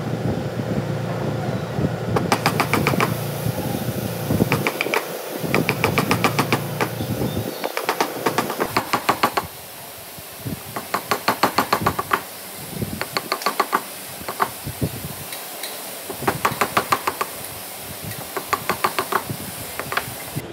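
Wide wood chisel being struck in quick runs of sharp taps, about eight a second, as it chops into a wooden workpiece, with short pauses between the runs.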